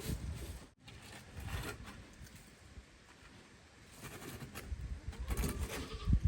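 Irregular scraping and rustling from hands-on outdoor work, over a low rumble, with a sudden brief dropout about three-quarters of a second in. The scraping gets louder and busier near the end.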